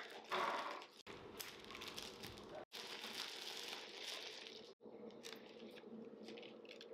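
Clear plastic flower wrapping crinkling as a bunch of tulips is unwrapped and handled, in short takes that cut off abruptly about a second in, near the middle and a little after.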